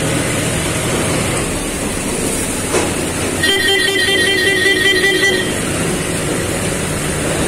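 Tractor engines running over the hiss of rain. About three and a half seconds in, a vehicle horn sounds for about two seconds with a pulsing tone.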